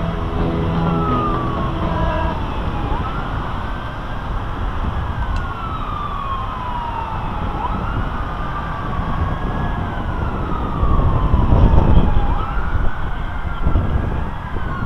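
Emergency-vehicle siren sounding a wail: a quick rise in pitch, then a slower fall, repeating every three to four seconds. A low rumble swells under it about eleven seconds in.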